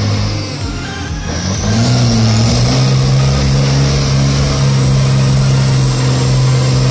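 Race truck's diesel engine revving hard during a burnout: the revs dip about a second in, climb again, then hold high and steady while the rear tyres spin and smoke.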